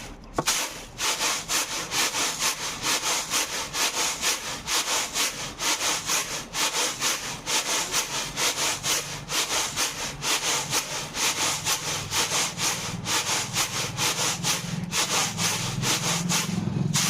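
Horse gram being winnowed in a woven winnowing tray: the seeds rustle and scrape against the tray in a steady rhythm of about two to three tosses a second. A low hum comes in toward the end.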